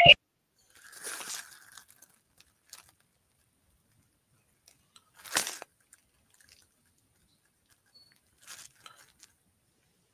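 A few short rustling and scraping noises over a video-call microphone, the loudest a sharp one about five seconds in, with quiet between them.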